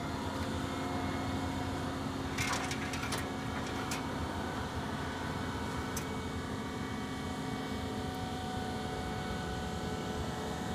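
Amerideck motorcycle lift's motor running steadily, hauling a motorcycle up its tilting ramp into a pickup bed. A cluster of sharp clicks and knocks comes a little over two seconds in, with single clicks at about four and six seconds.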